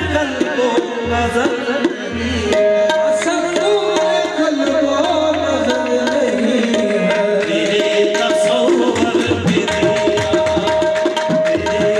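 Qawwali accompaniment: tabla playing a brisk, steady rhythm under a harmonium holding sustained notes.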